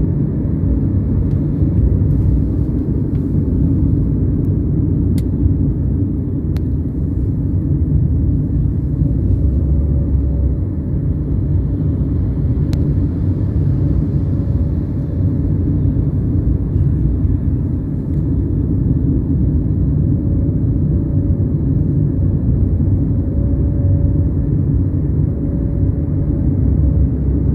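Metro train running: a steady low rumble, with a faint whine that comes and goes and a few light clicks.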